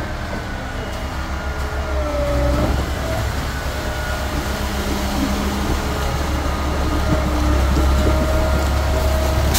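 Diesel engines of a concrete pump truck and a transit mixer truck running while concrete is pumped, a steady heavy rumble with a faint wavering whine above it.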